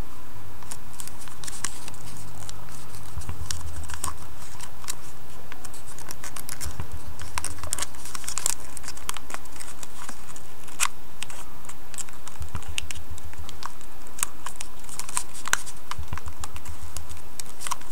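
Origami paper crinkling and crackling as it is creased and folded by hand, with sharp little paper clicks scattered throughout. Short low rumbles come now and then.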